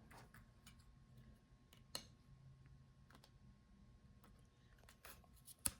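Near silence broken by a few faint clicks and taps of plastic and metal laptop parts being handled as the ThinkPad's motherboard is lifted out of the chassis, the sharpest click just before the end.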